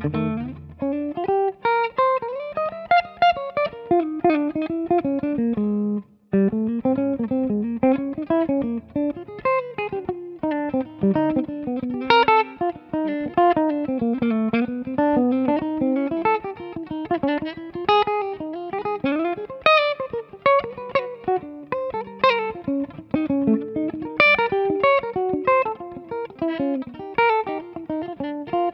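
Gibson SG electric guitar playing lead: quick single-note runs that climb and fall, with a short break about six seconds in.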